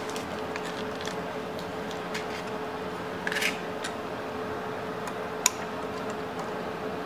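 Light metal clicks and a short scrape from pliers and new cotter pins being worked into a motorcycle drum brake's shoe retaining plate, with one sharp click late on, over a steady background hum.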